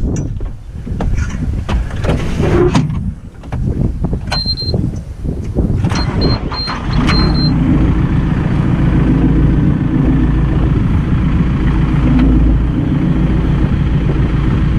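Metal clanks and knocks with a few short high beeps, then a diesel tractor engine picks up about seven seconds in and runs steadily under load as the roller is lifted.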